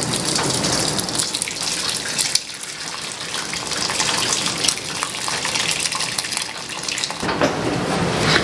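Hot homemade apple cider and mashed apple pulp poured from a slow cooker crock into a cheesecloth-lined strainer: a steady rush of splashing liquid with wet crackling as the fruit slides out, growing fuller near the end.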